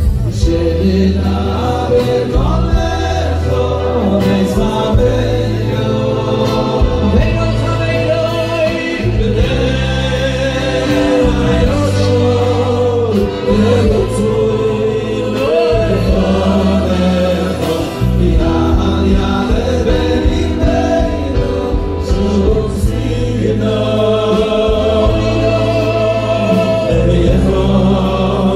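Men singing a slow Hasidic song together, two lead voices through microphones with others joining in, over an amplified backing that holds long low bass notes.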